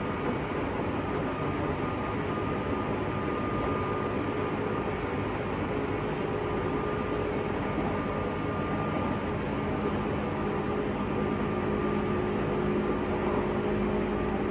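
JR West 201 series thyristor-chopper electric train running at speed, heard inside a motor car: a steady rumble of wheels on rail with a steady multi-tone hum from the running gear.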